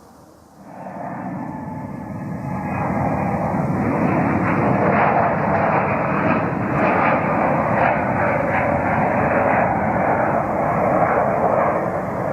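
Jet airliner taking off at full thrust. Its engines' roar starts suddenly about half a second in, builds for a couple of seconds, then holds loud and steady with a rough crackle.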